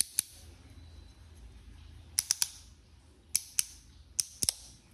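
Keychain COB LED flashlight multitool clicking as it is handled, its switch and folding plastic parts snapping: about ten sharp clicks in clusters of two or three.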